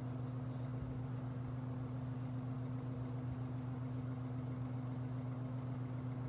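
1960s General Electric 22-inch box fan running on low speed: a steady motor hum under an even rush of air, still coming up to full speed.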